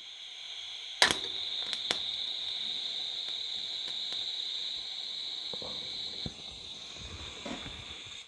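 TIG welding arc powered straight from two car batteries. It strikes with a sharp crack about a second in, then burns with a steady hiss, easing about six seconds in. The uncontrollable battery current runs too hot for the thin sheet and burns a hole through it.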